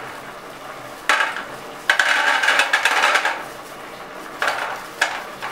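Raw peanuts shaken out of a plastic bag into a stainless-steel bowl: the bag crinkles and the nuts clatter on the metal. This comes in several short bursts, the longest lasting about a second and a half in the middle.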